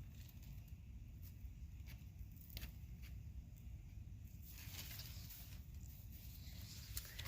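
Faint rustling of corn husks and leaves being handled on the stalk, with a few light clicks and a longer rustle in the second half.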